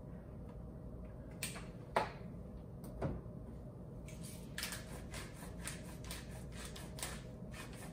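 A few light knocks as things are set down on a counter, then a hand-twisted spice grinder seasoning a bowl with salt and pepper: a run of short, repeated grinding strokes, about three a second, through the second half.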